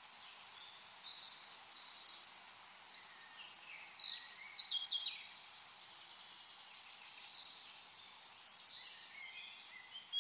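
Birds chirping over a steady hiss of background noise, with runs of quick downward-sweeping chirps about three to five seconds in and again near the end.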